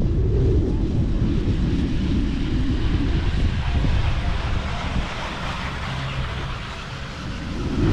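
Wind buffeting the microphone on a moving chairlift: a steady low rumble. About halfway through the rumble eases and a softer, airy hiss takes over before the rumble comes back near the end.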